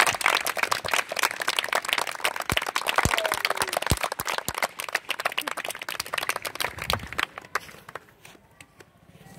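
A group of students clapping their hands together in applause. The claps are dense at first, then thin out and die away about seven seconds in, leaving only a few scattered claps.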